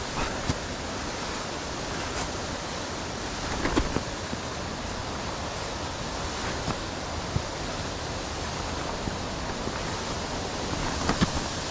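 Steady rushing of a nearby waterfall, with a few faint knocks and scuffs scattered through it.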